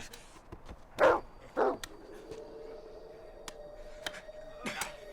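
A dog barks twice in quick succession, two short falling barks about a second in, followed by a faint steady held tone.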